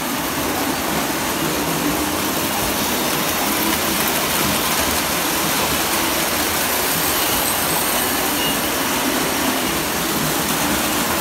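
Electric model train running on three-rail track, a steady mechanical noise.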